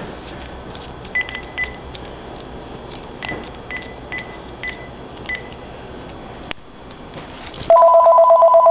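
Keypad beeps from a Panasonic cordless phone handset as a number is dialled: about eight short, high beeps spread over a few seconds. Near the end a telephone rings loudly with a warbling two-tone electronic ring.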